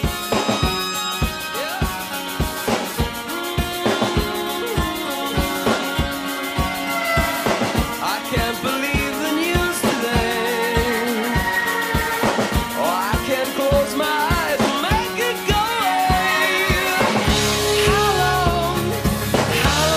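Background music: a song with a steady drum beat, singing coming in about a third of the way through, and a heavier, deeper part joining near the end.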